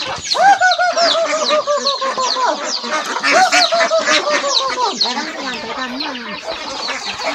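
A flock of chickens and chicks at feeding: hens clucking in quick runs of repeated calls while many chicks peep busily over them.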